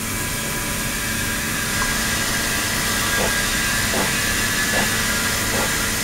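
Flow-through ultrasonic tank running with its circulation pump feeding water in through a hose: a steady hiss with several high steady tones and a low hum. From about three seconds in comes a short gurgle of water, repeating roughly once a second.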